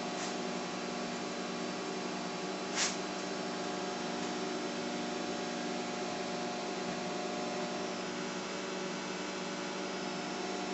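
Microwave oven running with a steady hum, with one short click about three seconds in.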